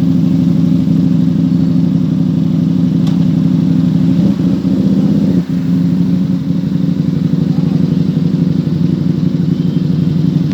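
Motorcycle engine running at a steady idle, with a brief dip in level about five and a half seconds in.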